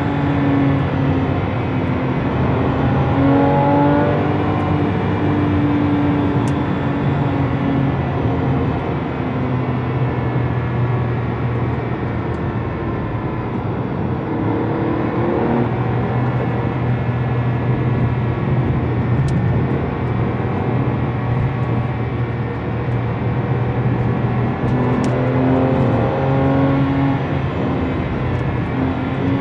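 Porsche 997.1 Carrera S's 3.8-litre flat-six heard from inside the cabin, its note rising and falling under steady road and tyre noise.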